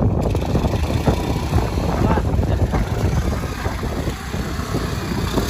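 Motorcycle engine running under throttle while the bike is stuck in wet mud and being pushed to free it. The level rises and falls unevenly.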